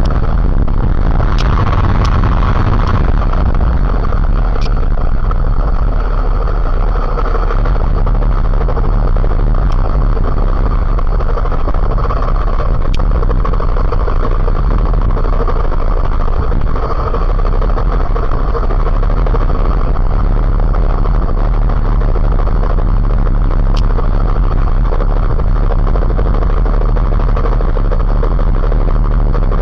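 A motorcycle running steadily while being ridden: a constant loud engine and road drone, with a few faint clicks.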